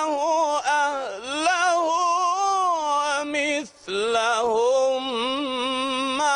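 A man reciting the Quran in the melodic mujawwad style: long ornamented held notes with a wavering pitch. There are two phrases, with a short breath between them about three and a half seconds in.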